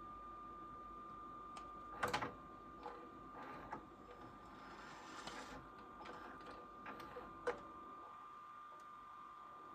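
Irregular mechanical clicks and clattering, loudest about two seconds in and again near the middle, over a steady high-pitched whine.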